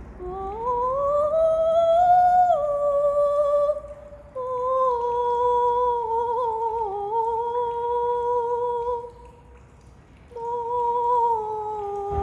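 A high voice singing a wordless vocalise: a long sliding rise, then held, slightly wavering notes, a break of about a second near the end, then a note that sinks a little. The voice echoes off the concrete underside of a bridge.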